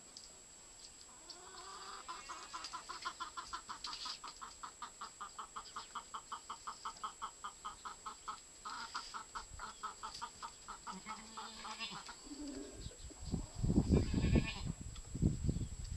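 A mule braying: a long run of rapid, evenly pulsed honking calls, about five pulses a second, with a short break partway through. Near the end come loud, low rumbling thumps.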